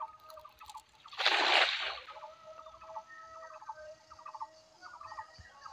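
A cast net slapping down onto pond water with one short splash about a second in. Behind it a bird calls over and over in short pulsed phrases.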